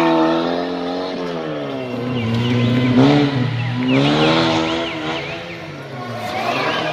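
Off-road race car engine revving up and down, its pitch falling, rising, falling and rising again, with a few short high squeaks in the middle and near the end.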